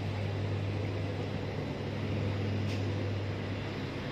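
A vehicle engine running with a steady low hum, over a constant wash of road and wind noise.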